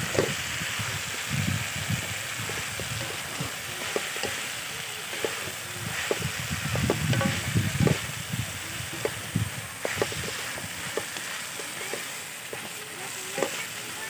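Chicken wings in sauce sizzling in a metal wok while a wooden spatula stirs and turns them, with irregular knocks and scrapes of the spatula against the pan over a steady frying hiss.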